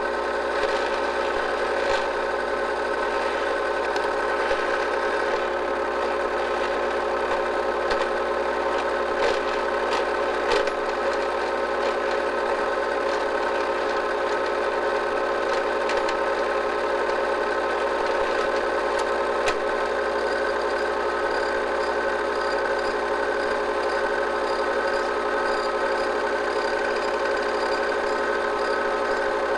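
8mm movie projector running steadily: an even mechanical whir with a held hum, unchanging throughout, with a few faint clicks.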